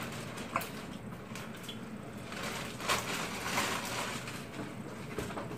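Clear plastic bag rustling and crinkling as it is handled, with a few sharper crackles.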